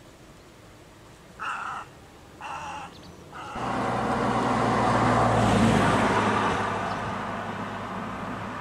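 Two short, harsh bird calls about a second apart, then a motor vehicle passing: engine hum and tyre noise swell to a peak about halfway through and slowly fade.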